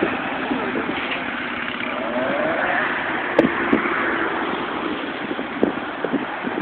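Steady noise of car traffic passing on the street, with a few sharp knocks in the second half.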